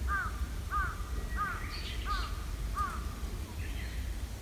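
A crow cawing five times in an even series, about one caw every two-thirds of a second, each caw rising then falling in pitch. Fainter chirps from other birds and a steady low rumble sit underneath.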